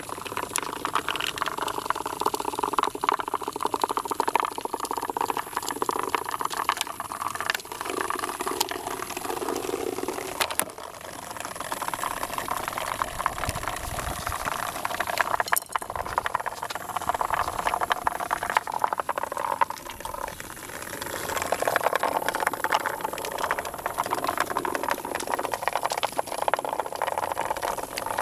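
Several Hexbug Nano vibrating robots buzzing and rattling as they skitter across a plastic bin floor and bump into wooden blocks, a continuous rapid clicking buzz that dips briefly twice.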